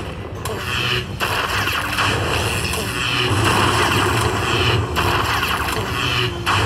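Lightning Link slot machine's lightning-strike sound effects as the bonus coin values are collected into the win meter, a noisy zapping that breaks off briefly about a second in, near five seconds and again near six and a half.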